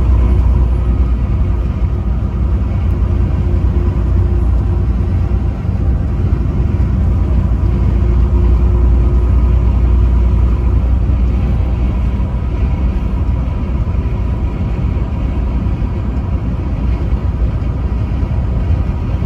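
Truck driving on the interstate: a steady low rumble of engine and road noise, with no horn sounding.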